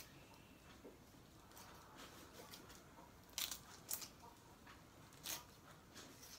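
Kitchen shears cutting up a quail carcass: a few faint, sharp snips, the three loudest in the second half.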